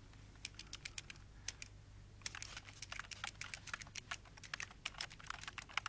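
Typing on a computer keyboard: scattered key clicks at first, turning into quick, dense runs of keystrokes from about two seconds in.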